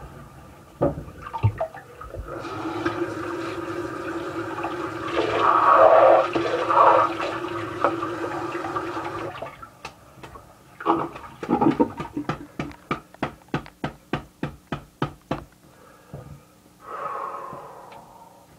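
Water running in a small bathroom for about seven seconds, loudest in the middle, then cut off. This is followed by an even run of sharp slaps or taps, about four a second, lasting several seconds.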